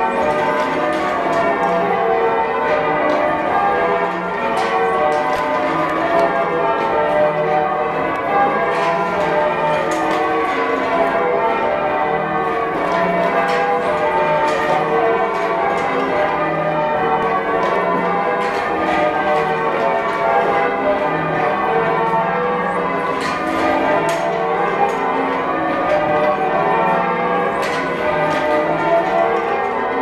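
Change ringing on a ring of church bells, most of them cast by Thomas Rudhall in 1773, with a tenor of 20-3-5 in D, heard from the ringing chamber below the bells. The bells strike one after another in a continuous, even rhythm, with the tones overlapping.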